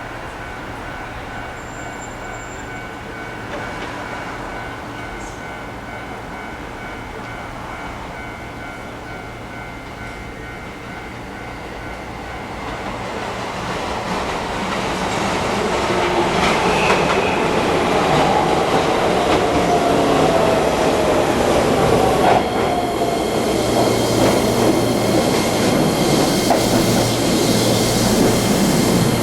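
Keihan 10000-series electric train approaching and pulling in, its wheels clattering over the rails and growing much louder about halfway through. A whine falls in pitch over several seconds as it runs past.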